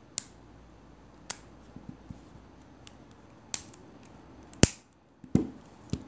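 SOG Sync buckle multi-tools being folded shut by hand: a series of sharp metal clicks and snaps as the handles and tools close, about six in all. The loudest comes about three-quarters of the way through, with a few lighter ticks between.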